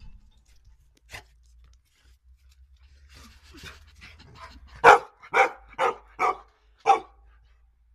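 Rottweiler barking five times in quick succession, about two barks a second, starting about five seconds in.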